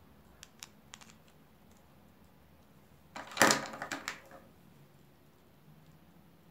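Hard plastic parts of a Soviet safety razor and its plastic case being handled: a few faint clicks, then a louder burst of clicking and clattering about three seconds in that lasts about a second.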